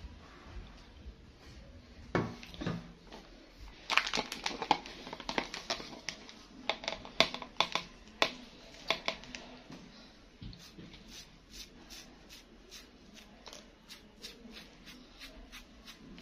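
Plastic toothbrush clicking and scraping in a plastic bowl of hair dye and dabbing the dye onto dreadlocks: a dull knock about two seconds in, a run of sharp clicks and taps from about four seconds in, then fast, light, even ticks of brushing strokes.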